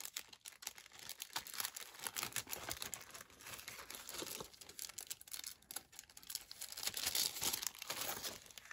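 Rustling and crinkling of craft supplies being handled on a desk, with many small clicks and taps, louder near the end as an arm reaches close across the desk.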